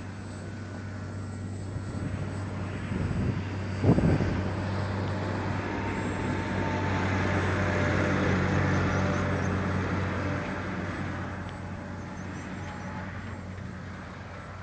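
Corsair aircraft's propeller engine droning as it flies past overhead, swelling to its loudest about eight seconds in and then fading away. A sharp thump sounds just before four seconds in.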